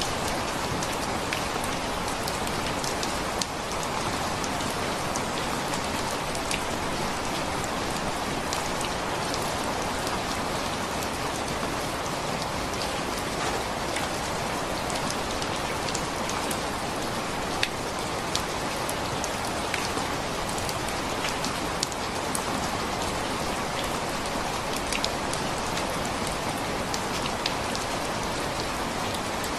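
Steady rain falling, with scattered sharper taps of single drops striking a surface close by, as when listening under the eaves of a roof.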